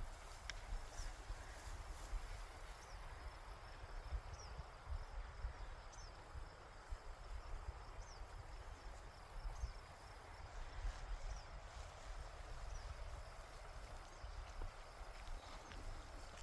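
Riverside ambience: a steady rush of flowing water under an uneven low rumble, with faint short high chirps every second or two.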